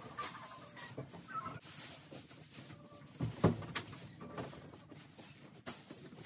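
Rustling of loose straw and footsteps through it, with a few faint clucks from a rooster being carried. A single sharp knock about three and a half seconds in is the loudest sound.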